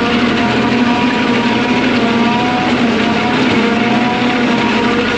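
Heavy diesel machinery running steadily under load, with a constant rushing noise over the engine drone, as a truck is filled beside a forage harvester.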